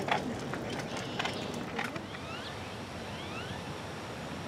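Outdoor background noise with a few sharp clicks or knocks in the first two seconds, then several short rising whistles from birds.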